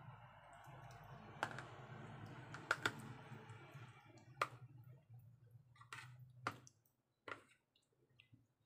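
A metal spoon clicks and taps against a plastic food container as it scoops marinade over raw chicken wings, in several sharp, uneven clicks. A faint steady low hum runs underneath and stops about two-thirds of the way through.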